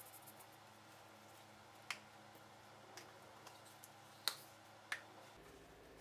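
Near silence broken by a few short, sharp clicks spread over several seconds, the loudest about four seconds in.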